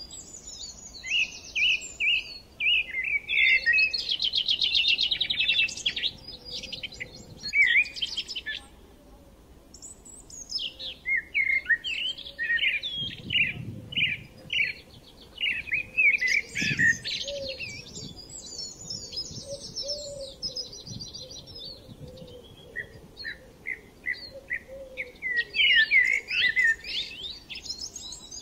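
Songbirds chirping and trilling in rapid, varied bursts with short lulls between them. A couple of soft low thumps sound near the middle.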